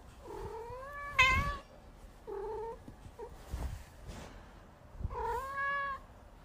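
Scottish Fold cat meowing four times: a long drawn-out call about a second in, the loudest, then two short calls and another long one near the end.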